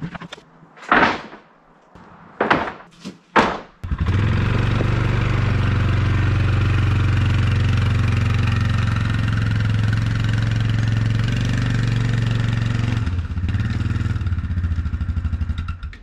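A few short, loud knocks in the first four seconds, then an ATV engine running steadily while it tows a log on a cable. About three seconds before the end the engine drops to a lower, pulsing run, then cuts off.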